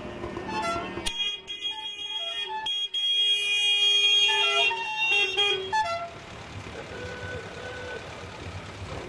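A melody of held notes that change in pitch, with steady high tones above them, cut off sharply about six seconds in; after that, the steady sound of old cars driving slowly past.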